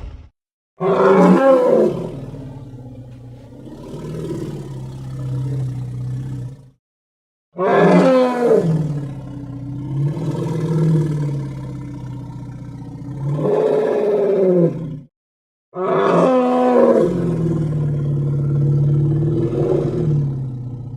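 Three long creature roar sound effects, each starting loud and trailing off into a wavering, groaning pitch, with short gaps of silence between them; the third is still going at the end.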